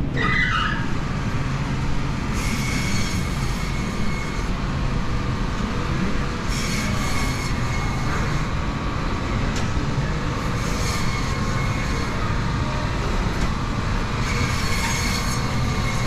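A vehicle in motion: a steady low rumble, with a brief hiss coming back about every four seconds.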